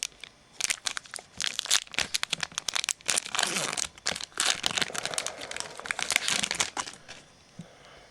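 Foil trading-card pack wrapper being handled and opened, with a dense, irregular crinkling that stops about a second before the end.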